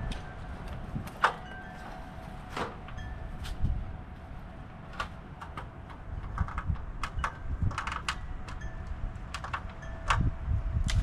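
Wind buffeting the microphone with an uneven low rumble, with scattered sharp clicks and snaps.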